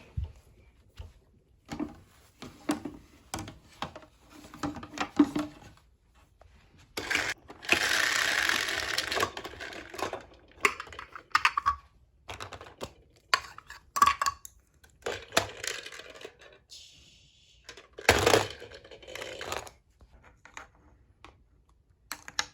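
Small plastic toy pieces, such as toy dishes and utensils, being handled: scattered clicks, taps and clatter, with a longer rattling, scraping stretch about eight seconds in and a shorter one near the end.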